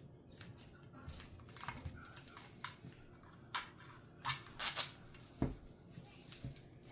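Toy packaging being opened: irregular snips, crinkles and scrapes, loudest in a cluster past the middle, with a dull thump about five and a half seconds in.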